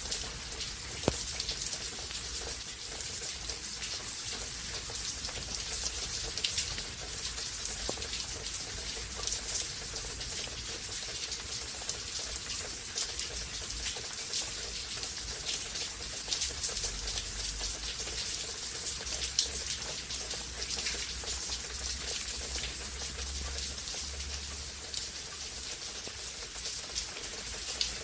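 Steady rain falling during a rain storm, with a dense patter of individual drops close by and one sharper tap about a second in.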